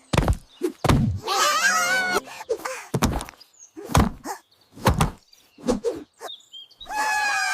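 A series of about a dozen sharp thumps and knocks, with a high, wavering cry about a second in and again near the end.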